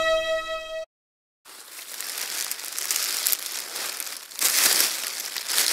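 Plastic bin bags being rummaged through, crinkling and rustling unevenly, louder about four and a half seconds in and cut off abruptly at the end. A held musical note stops under a second in, with a short gap of silence before the crinkling starts.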